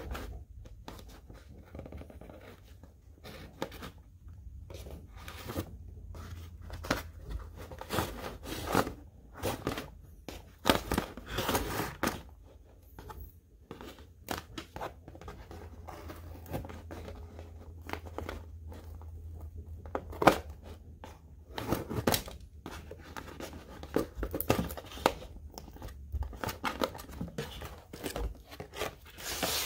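Clear adhesive tape being peeled and torn off a cardboard packaging insert, in irregular short rips and scratchy rasps with a few sharper snaps, as cords are freed from the board.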